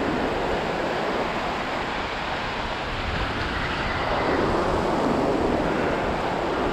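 Ocean surf breaking and washing around the angler's legs, with a wave surging in more loudly about four seconds in. Wind buffets the microphone.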